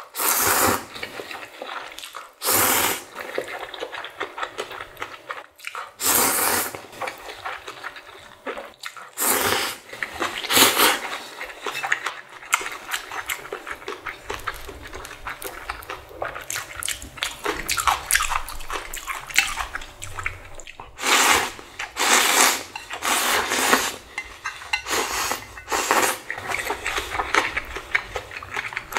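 Close-miked eating of spicy ramen noodles: a person slurping noodles in about eight loud, noisy pulls of up to a second each, with wet chewing and small clicks between the slurps.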